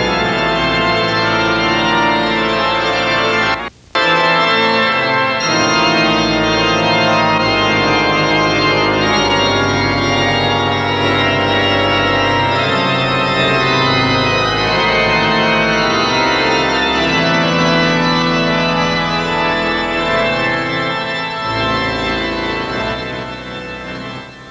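Organ music playing sustained chords; it cuts out briefly about four seconds in and fades away near the end.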